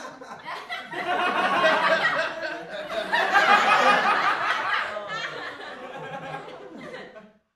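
Dense chorus of many animals giving short, overlapping chuckling calls. It swells in the middle and dies away near the end.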